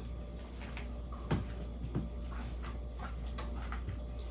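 Scattered light knocks and scuffs as a person shifts about in a wooden underfloor hatch and begins to climb out onto the floor, the two clearest about a second and a half and two seconds in, over a steady low hum.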